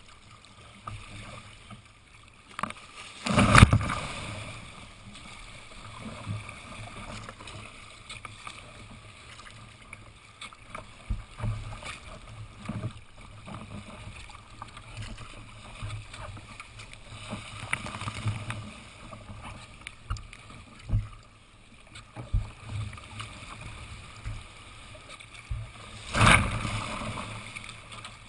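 Choppy water slapping and splashing against a sea kayak's hull and paddle, in irregular splashes. Two heavy splashes, about three seconds in and near the end, are the loudest.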